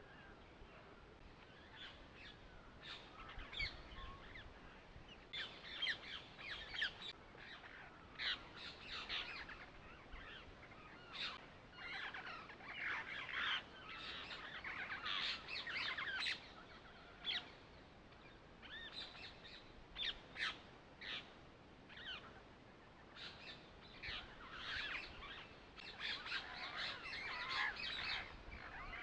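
Birds chirping and calling, in clusters of short high calls that come and go every few seconds.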